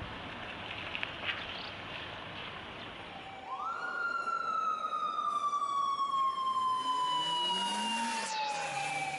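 Steady background noise with a couple of faint clicks. About three and a half seconds in, a siren rises quickly to a high wail, then slides slowly and steadily down in pitch.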